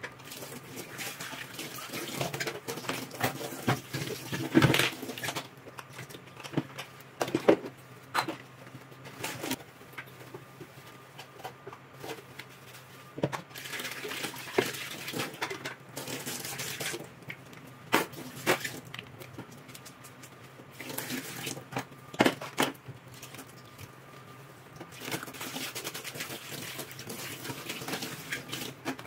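Kitchen tap running in spells into a stainless steel sink as dishes are rinsed by hand, with several sharp clatters and clinks of dishes and cookware being handled and set in the drying rack.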